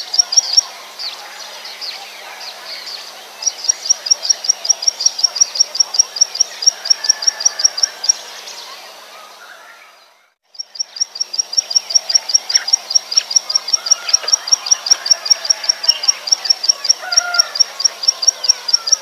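Plain prinia (ciblek sawah, Prinia inornata) singing: a fast, even string of high, sharp notes, about five a second, in runs of several seconds. The song breaks off briefly near the start. Just before halfway it fades out, then starts again abruptly and keeps going.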